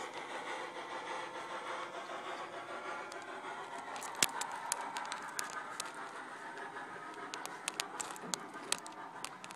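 Steam locomotive sounds from a TCS WOW sound decoder in a B&O 0-10-0 model locomotive, running as a steady hiss. From about four seconds in, a scatter of sharp clicks and scratches sounds over it.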